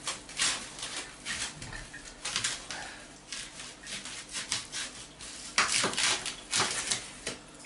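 Kitchen knife cutting through a leek onto a chopping board: a run of irregular crisp cuts and knocks, with a quicker cluster of cuts about six seconds in.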